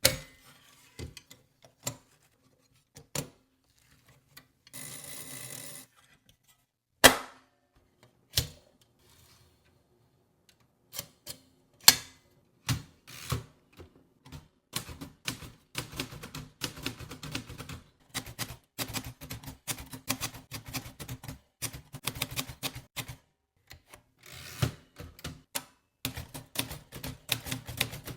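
Royal Arrow portable typewriter being worked: scattered single clicks and knocks at first, with a rasp lasting about a second around 5 s and two loud knocks at about 7 and 12 seconds. Then, from about 15 seconds in, rapid typing of keys striking, with a brief pause near 23 seconds.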